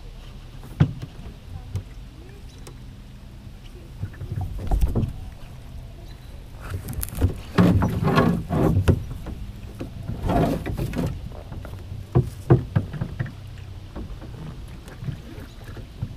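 Small sailing skiff moving slowly through the water: irregular splashing and lapping of water along the hull in several bursts, with a few sharp knocks from wood or gear inside the boat.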